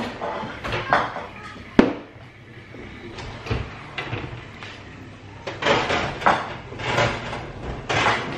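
Oven door and a hot baking dish being handled: clicks and knocks as the door is worked and the dish slid out with an oven glove, with one sharp knock about two seconds in and a few short scraping, rustling sounds near the end.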